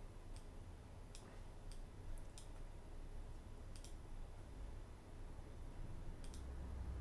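Scattered clicks of a computer mouse and keyboard, about seven short sharp clicks at irregular intervals, over a faint low hum.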